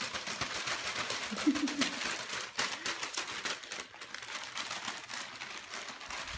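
Thin plastic shopping bag crinkling and rustling as a small dog moves about wearing it, a fast, irregular run of crackles.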